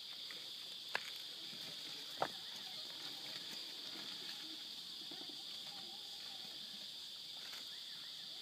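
Insects droning steadily in one high-pitched band, with two sharp clicks about one and two seconds in.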